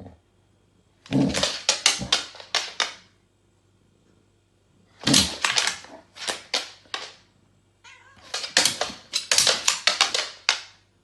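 A cat making rapid, harsh vocal outbursts in three bouts, each a quick string of short sharp sounds, with the last bout the longest.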